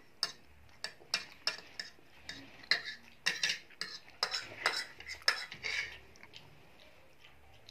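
Metal fork clinking and scraping against a plate as noodles and chicken are picked up, a quick run of taps and short scrapes that stops about six seconds in.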